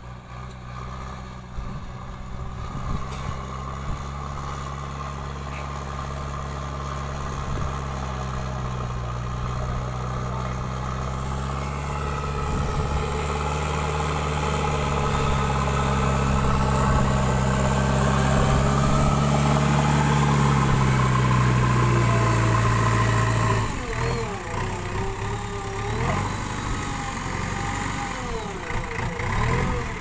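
JCB 3DX backhoe loader's four-cylinder diesel engine running under load as it pushes soil with the front bucket, growing steadily louder as the machine comes closer. About three-quarters of the way through it drops back sharply to a lower, idling note.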